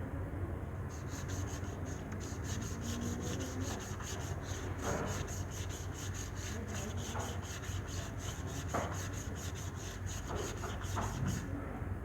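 Scrubbing on a motorcycle during cleaning: quick, even back-and-forth strokes that start about a second in and stop near the end.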